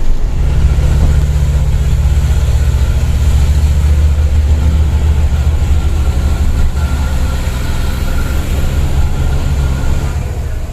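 Hino Ranger dump truck's diesel engine running steadily on the road, a loud deep drone.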